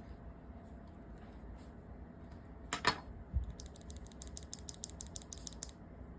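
Typing on a mechanical keyboard with HMX linear switches: a few soft keystrokes, a louder clack about three seconds in, then a fast run of keystrokes, about ten a second, for two seconds.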